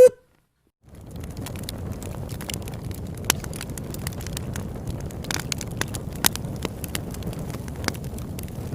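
Campfire burning, crackling with scattered sharp pops over a steady low rumble. It comes in about a second in, after a moment of dead silence.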